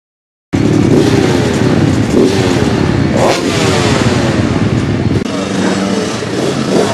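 Several off-road motorcycle engines running and revving together, with overlapping engine notes rising and falling. The sound starts suddenly about half a second in and turns to a steadier engine note about five seconds in.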